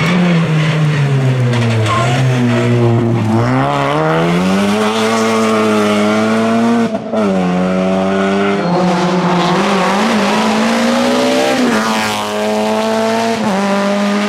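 Mini Cooper S rally car's engine working hard: its pitch falls as the car slows into a bend, then climbs as it accelerates away. It holds at high revs, with a brief drop at a gear change about seven seconds in.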